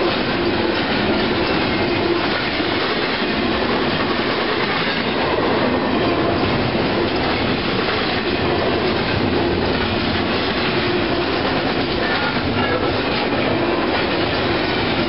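Double-stack container well cars of a freight train rolling past close by: a loud, steady noise of steel wheels running on the rails.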